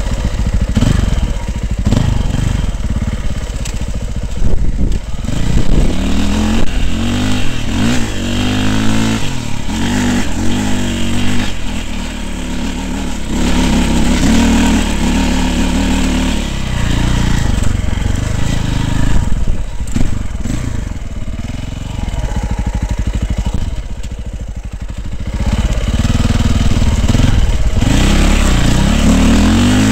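Dirt bike engine revving up and down with the throttle as the bike climbs steep, loose hillsides, heard from the rider's helmet camera. The revs ease off briefly about three-quarters through, then hold steady and high.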